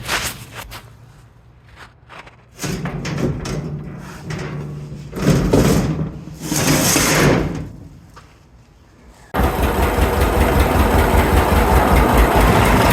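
Irregular knocks and scrapes of metal being handled, then a tractor engine running steadily with a rapid low throb, coming in suddenly about nine seconds in.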